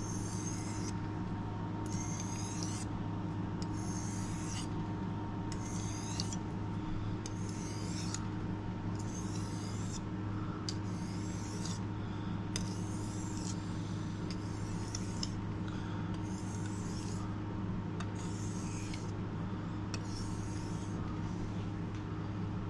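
Kitchen knife blade sharpened on a whetstone: about a dozen rasping strokes, roughly one every one and a half to two seconds, stopping shortly before the end. A steady low hum runs underneath.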